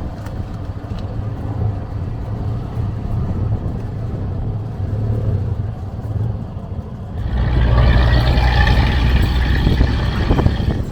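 Auto-rickshaw engine running on the road, a steady low rumble that grows louder about seven seconds in, joined then by higher whining tones.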